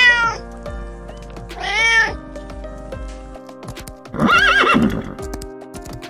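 A kitten meows twice, short calls at the start and about two seconds in, then a horse whinnies briefly about four seconds in, over steady background music.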